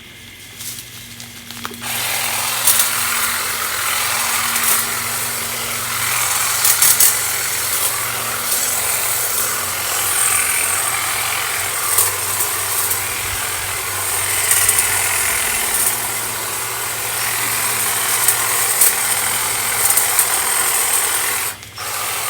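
Powered hedge trimmer starts about two seconds in and runs steadily while cutting a shrub level; it cuts out briefly near the end and starts again.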